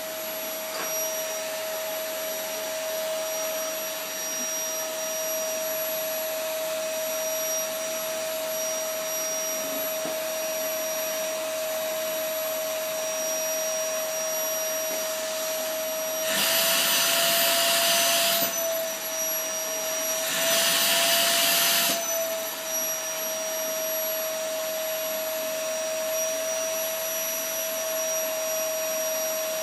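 Vacuum cleaner running steadily with a high motor whine over a rush of air. Twice, about halfway through and again a few seconds later, the airflow gets louder and hissier for about two seconds, and the whine lifts slightly in pitch.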